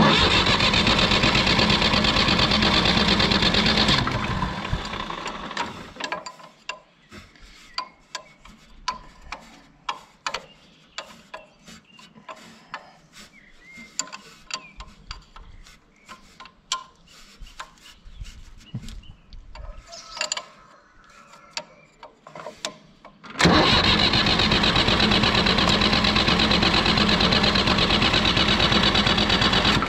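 Fiat 480 tractor's diesel engine turned over on the starter with its injector lines opened, to bleed air from the fuel system: a long spell of cranking at the start, then a quiet stretch of light clicks and taps at the injector fittings, then cranking again for the last six seconds or so.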